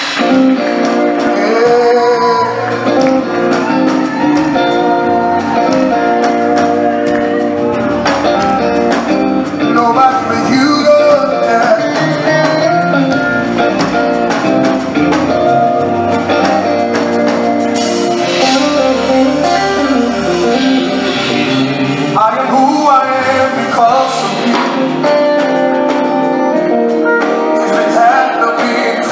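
Live gospel band music with a male lead vocalist singing over electric guitar, keyboard and drums.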